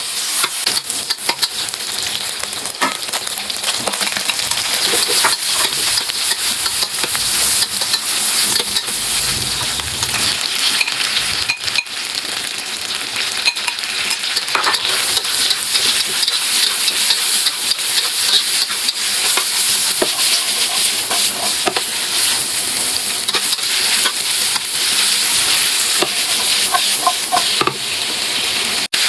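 Meat and carrots sizzling steadily as they are stir-fried in a hot pan, with frequent short clicks and scrapes of the utensil stirring them.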